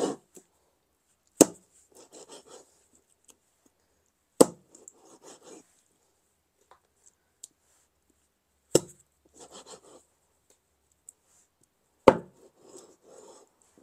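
Meat cleaver chopping a chicken into pieces through the bone on a cutting board: five sharp strikes a few seconds apart, with softer scraping and handling of the meat between them.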